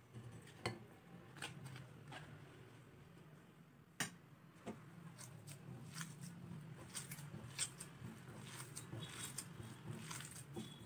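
A hand mashing and kneading cooked chana dal in a glass bowl: soft squishing with many light clicks of fingers against the glass, thickening after a few seconds. A few sharp clicks come first, as the dal is tipped from a steel strainer into the bowl.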